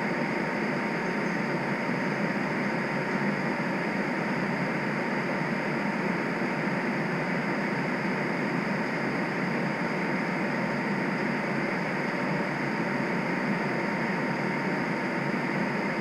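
Steady hum and hiss inside a stationary TTC streetcar, with a faint steady whine running through it.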